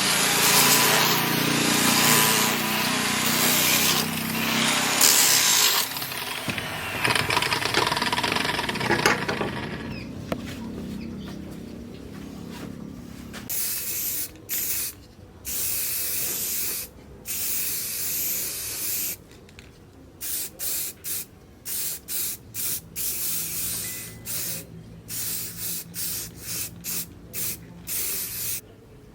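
Abrasive power-tool grinding or sanding for about the first ten seconds, fading away. It is followed by a long series of short hissing sprays, each switched on and off sharply, some quick and some lasting about a second.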